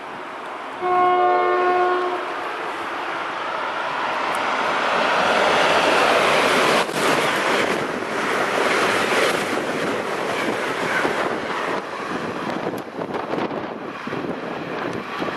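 Amtrak electric train passing at speed: the locomotive gives one horn blast about a second long as it approaches, then a rising rush of wheels and air as it and its passenger cars go by close at hand, with a rough clatter from the cars that eases off a little near the end.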